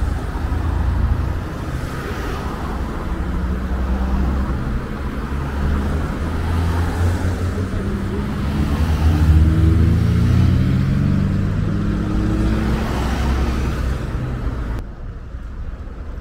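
Road traffic passing close by, a steady rumble of engines and tyres. Past the middle one vehicle's engine rises in pitch as it accelerates, and near the end the noise drops off abruptly.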